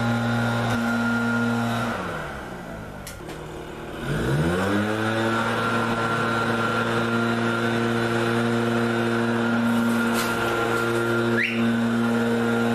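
Steady hum of an electric motor running at constant speed. About two seconds in it winds down and goes quiet, then about four seconds in it spins back up to the same speed and runs steadily again.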